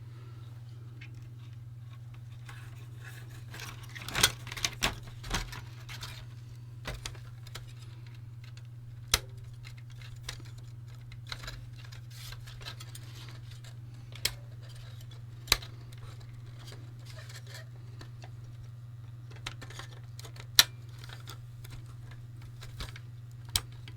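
Scattered clicks, taps and small metal clinks of small parts being handled and fitted during reassembly of a VIC-20 power switch, with a cluster about four seconds in and the sharpest click near twenty seconds in. A steady low hum runs underneath.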